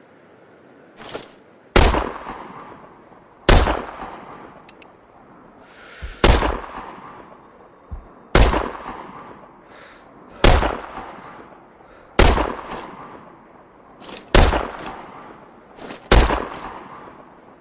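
Dragunov SVD semi-automatic sniper rifle firing eight single shots, roughly two seconds apart, each with a long echoing tail. A faint click comes just before several of the shots.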